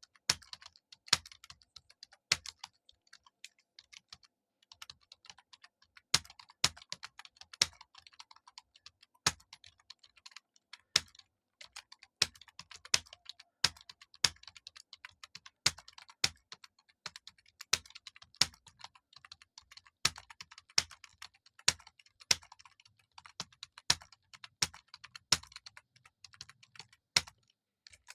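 Typing on a computer keyboard at a steady test pace: a continuous stream of light key clicks, with louder, heavier keystrokes every second or so.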